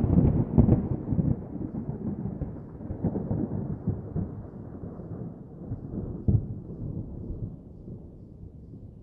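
Muffled low rumble with scattered dull thumps, fading out slowly as it grows duller.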